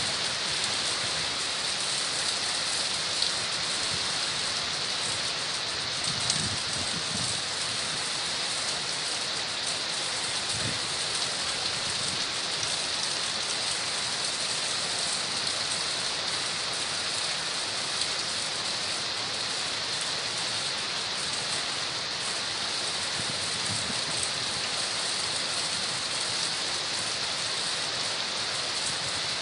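Heavy typhoon rain pouring down steadily onto the street and roofs, a dense, even hiss that holds at one level throughout.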